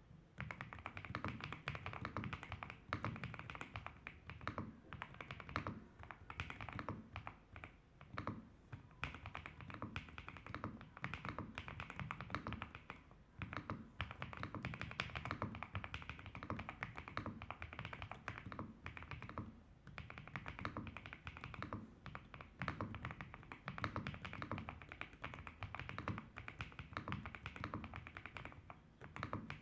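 Continuous fast typing on a Riccks RS8 mechanical keyboard with KTT Strawberry V2 linear switches and Ghost Judge Astronaut keycaps: a dense run of keystroke clicks, each with a deeper clack from the key bottoming out, and a few brief pauses.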